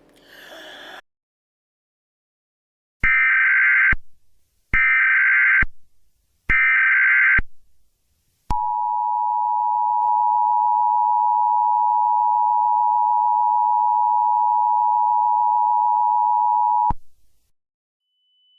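Emergency Alert System broadcast tones: three harsh, buzzy bursts of digital header data about a second each, then the two-tone attention signal, a steady dual tone held about eight seconds that cuts off abruptly. A brief burst of noise comes just before, about a second in.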